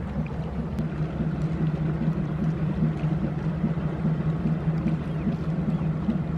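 Inland cargo ship's diesel engine running with a steady, pulsing low throb as the vessel passes.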